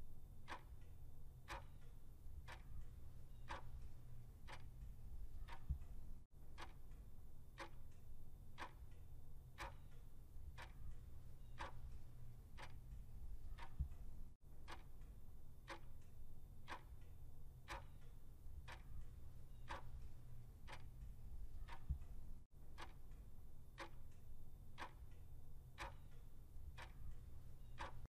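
Clock-ticking sound effect of a quiz countdown timer: a steady, evenly spaced tick, over a low steady hum.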